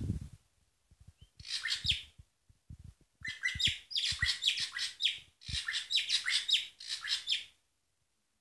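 Caged drongo singing: three bursts of rapid, high chirping phrases, with soft low knocks between them. It falls silent about seven and a half seconds in.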